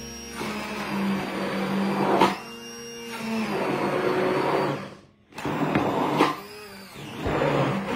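Electric immersion (stick) blender whirring as it purées cooked pumpkin in a tall beaker. It runs in several stretches that ease off and pick up again, with a brief stop about five seconds in.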